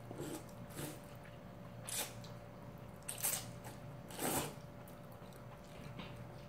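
A person slurping cold spicy seafood naengmyeon noodles in about four short wet sucks, the last and longest about four seconds in.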